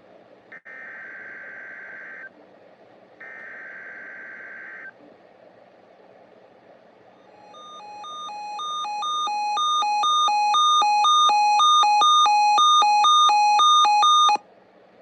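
Emergency Alert System broadcast: two short buzzy digital data bursts of the EAS header, then an alternating high-low alert tone that grows steadily louder over several seconds and cuts off abruptly. Together they signal that a new alert message is about to begin.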